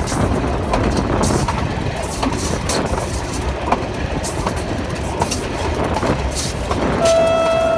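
RGE-20 locomotive-hauled passenger train running at speed, a steady rumble with wheels clicking over rail joints. Near the end the locomotive's horn starts sounding one steady note.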